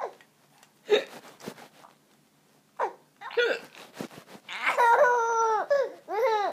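A woman hiccuping: short, sharp catches at the start, about a second in and near three seconds. These are followed by a baby's long, high-pitched squealing laugh with a wavering pitch through the second half.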